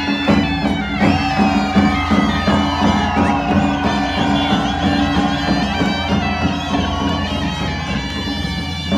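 Himachali folk dance music: a reed wind instrument plays a wavering, ornamented melody over a steady drone, with a quick, even drum beat of about three to four strokes a second.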